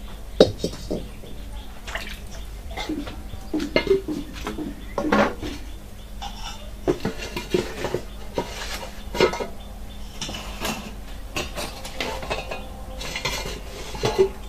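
Metal cooking pots and lids clanking and scraping as they are handled and set down: a string of sharp clanks and clatters, some ringing briefly.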